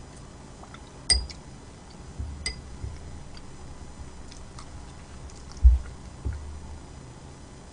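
Close-miked eating sounds: soft chewing and small mouth clicks. A utensil clinks against a dish with a short ring about a second in and again a little later. A dull low thump, the loudest sound, comes just past the middle.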